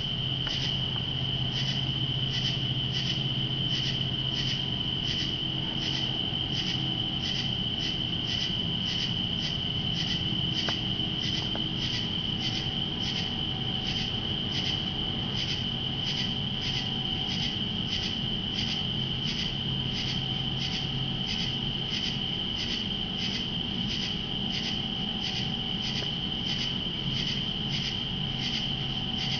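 Night chorus of insects: a steady high trill of crickets, with another insect calling in regular chirps about one and a half times a second, over a low steady hum.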